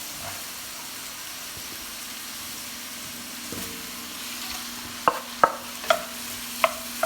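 Onions sizzling in a hot soup pot, then a spoon stirring them and knocking against the pot several times from about five seconds in.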